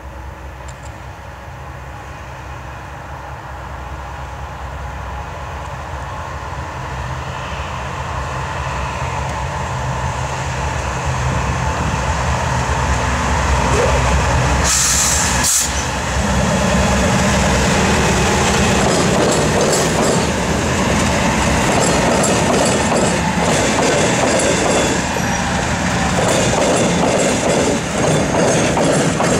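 Norfolk Southern freight train led by four GE wide-cab diesel locomotives approaching and passing close by. The engine rumble grows steadily louder as it nears, with a brief hiss about halfway, then a steady din of engines and wheels clattering over the rail diamond.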